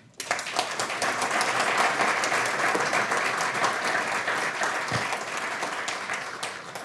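Audience applauding. The clapping begins suddenly and dies away near the end.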